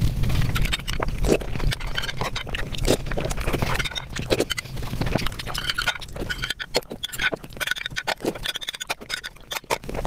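Close-miked mukbang eating sounds: wet chewing, lip smacks and slurps of soft syrupy sweets, with a spoonful of yellow custard taken and eaten near the end.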